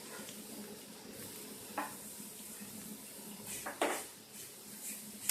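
Sliced onions sizzling as they fry in oil in a pan, roasting toward golden brown, with a spatula scraping and knocking against the pan as they are stirred, most sharply about two seconds in and again near four seconds.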